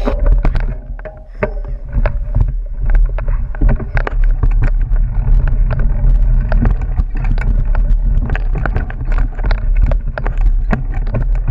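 Mountain bike ridden along a rough dirt singletrack, heard from an onboard camera: a constant low rumble of wind and trail vibration, with frequent rattling clicks and knocks from the bike over roots and stones.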